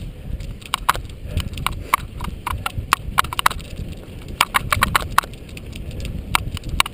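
Cyclocross bike rattling over bumpy grass at riding speed: a quick, irregular run of sharp clicks and knocks over a low rumble of tyres and wind.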